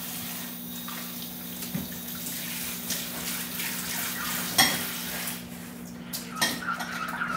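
Kitchen tap running into a sink while dishes are washed by hand. A dish clinks sharply about four and a half seconds in, with more clatter near the end.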